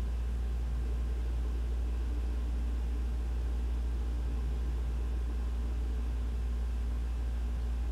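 Ventilation system blowing through a ceiling vent: a steady low rumble with a faint even hum over it.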